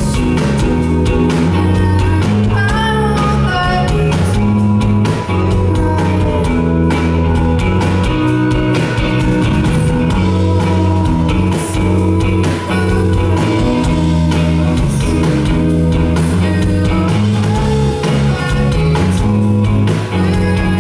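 An indie rock band playing live: electric guitar, bass guitar, drums and keyboard, running steadily and loudly.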